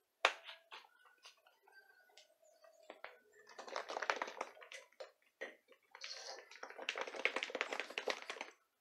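Plastic bottle of liquid colorant being shaken and squeezed out into a cup: a sharp click just after the start, then two bursts of rapid sputtering clicks, the second one longer.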